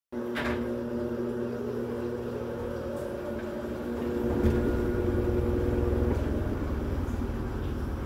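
Electrolux top-loading washing machine on its spin cycle, spinning a pair of sneakers: a steady motor hum with a whine, under a low rumble that grows louder about four seconds in, while the whine fades out about six seconds in.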